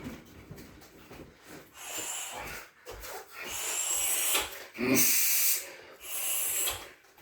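Hard, hissing breaths from a fighter between shin kicks, several drawn-out exhales, with a short dull thump about five seconds in.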